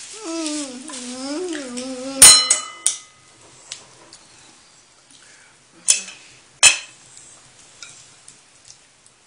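Tableware at a dinner table: one loud ringing clink of a plate, a couple of seconds in, then a few lighter clicks of chopsticks and dishes. Before the clink there is a drawn-out, wavering voice-like sound.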